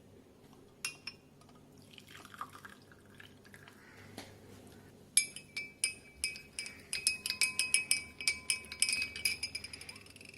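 Utensil clinking against a ringing glass or metal vessel: a few light clicks early on, then a quick run of repeated clinks from about halfway in, as in stirring or mixing.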